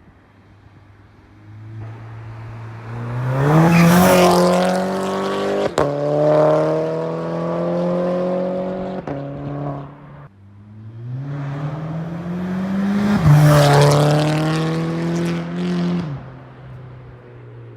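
Mk6 Golf GTI's turbocharged four-cylinder, fitted with a cat-back exhaust and a catless, resonator-delete downpipe, accelerating hard twice. Each time the exhaust note climbs in pitch and then holds before easing off, and the second pull is the louder.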